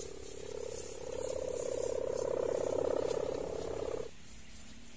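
Kite sendaren (Javanese humming bow) of the 'ngorok' snoring type droning with a fast rattling buzz in the wind. It swells louder and a little higher about a second in, then cuts off suddenly about four seconds in.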